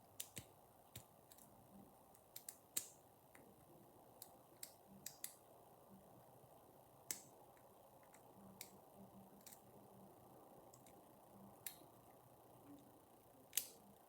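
Faint, irregular clicks of a half-diamond pick working the pins inside a euro cylinder lock held under tension, with a louder click near the end.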